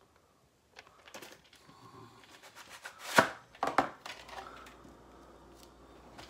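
VHS tape being handled: scattered light clicks and taps, then a few sharper knocks of the plastic cassette about three seconds in as it is slid out of its sleeve.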